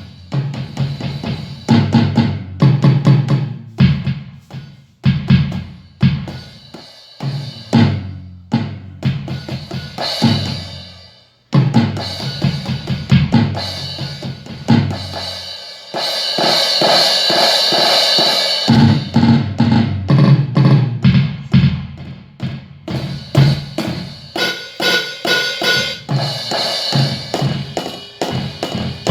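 Drum-kit voices from an ED04 digital drum station, bass drum and snare hits in a rhythm, with a denser, sustained stretch partway through. The unit is working again after repair of its shorted internal power supply.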